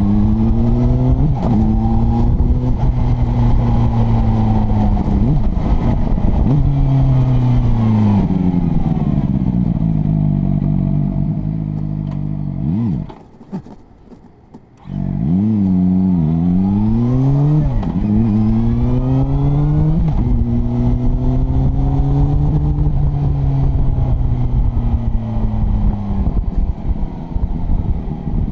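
CFMoto 500SR Voom's inline-four engine and exhaust on a ride. The pitch climbs and falls as the bike accelerates and slows, with a long falling slowdown, a brief lull about halfway, then a run of quick rising sweeps through the gears.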